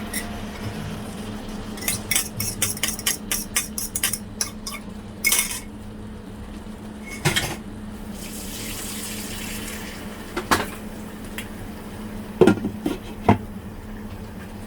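Kitchen utensil clinking against a pan or dish: a quick run of light taps, then a few scattered single knocks, over a steady low hum.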